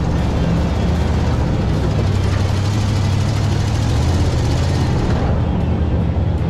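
Ford Bronco engine running under load as the truck climbs a sandy trail, a steady low hum with a hiss of wind and tyre noise over it; the hiss eases about five seconds in.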